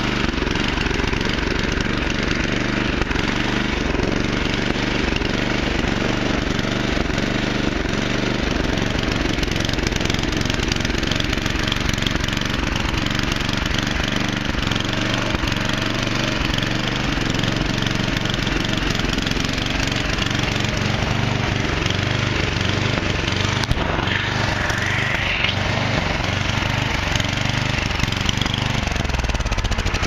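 Petrol snowblower engine running steadily.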